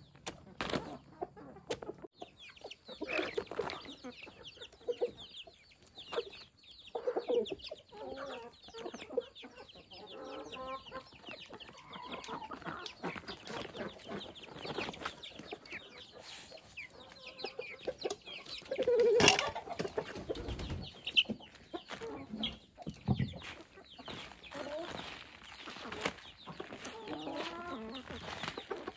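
Chickens clucking, with many short calls throughout. A sharp knock about two-thirds of the way through is the loudest sound.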